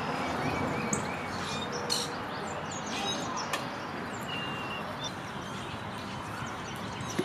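Wild birds chirping and calling in short, scattered notes over a steady outdoor background noise.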